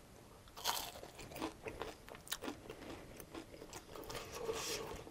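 Close-up chewing of a crispy fried spring roll: soft, irregular crunches and crackles in the mouth.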